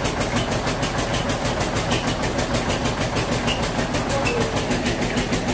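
Flour-mill (atta chakki) machinery running steadily: a constant hum under a fast, even beat of about ten pulses a second.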